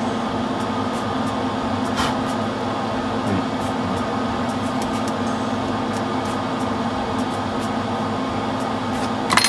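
Hobby paint spray booth exhaust fan running with a steady hum. There is one light click about two seconds in and a few quick clicks near the end.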